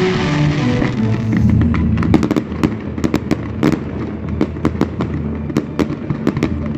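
Fireworks display going off: from about two seconds in, a fast, irregular run of sharp pops and crackles from bursting shells and crackling stars.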